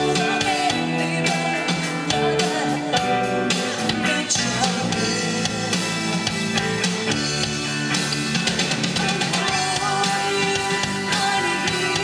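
Live band music: a woman singing into a microphone over guitar and drum kit.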